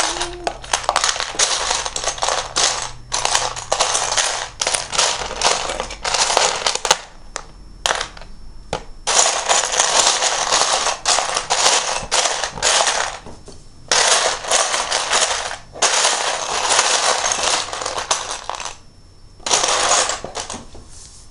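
Hands rummaging through a pile of loose Lego bricks: a dense clatter of small plastic pieces knocking together, in bursts of a few seconds with short pauses between.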